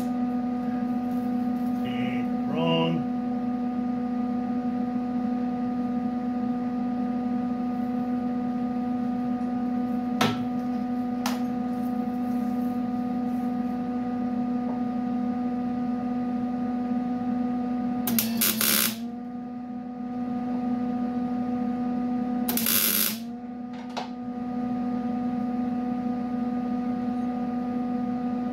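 Two short bursts of welding-arc crackle, about 18 and 23 seconds in, as studs are tack-welded in place, over a steady electrical hum that dips in pitch during each burst. A couple of sharp clicks come earlier.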